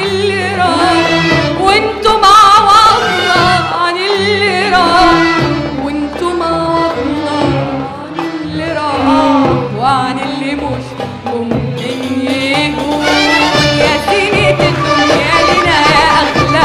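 Live Arabic song: a woman singing with vibrato into a microphone over an Arab orchestra with violins.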